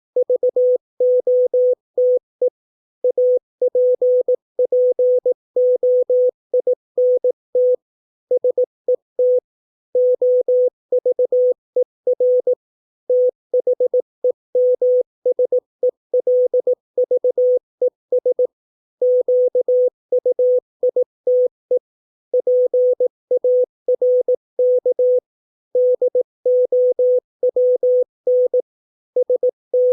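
Morse code practice tone: a single steady mid-pitched beep keyed in dots and dashes at 18 words per minute, spelling English words with short pauses between each word.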